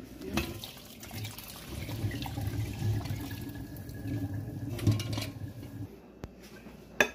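Water running off parboiled Ofada rice as it is drained through a colander into a sink, a steady splashing wash that stops about six seconds in. A sharp knock follows near the end.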